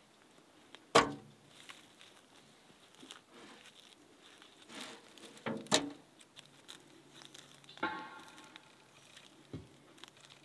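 Twigs and brush snapping and rustling as someone pushes through forest undergrowth, with a loud sharp snap about a second in and a few more later. Near the end comes a soft tearing as a clump of moss is pulled off a rotting log.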